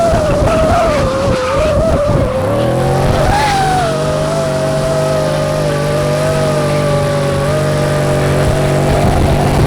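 Drift car's tyres squealing through a long slide, the squeal wavering in pitch, with the engine held at steady high revs from about three seconds in.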